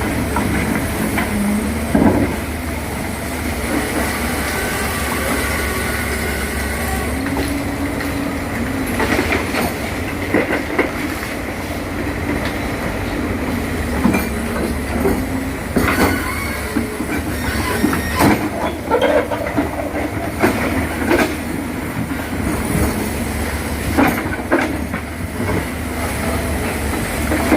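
Excavator running steadily, with sharp metallic clanks and knocks scattered throughout as it works.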